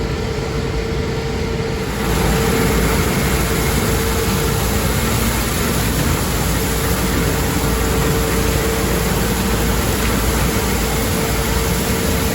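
Large farm machinery running steadily, a dense mechanical noise with a constant whine through it, growing louder about two seconds in.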